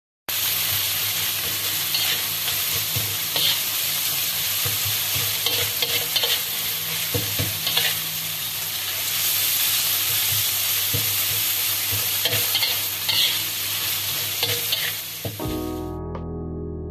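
Stir-frying in a wok: oil sizzling steadily as Chinese chives and egg are tossed, with a metal ladle scraping and knocking against the wok now and then. Near the end the sizzle cuts off and soft keyboard music starts.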